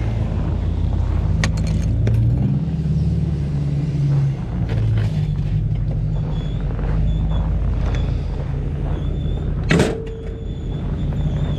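Engine running steadily, its pitch shifting between about two and four and a half seconds in, with one sharp knock near the end.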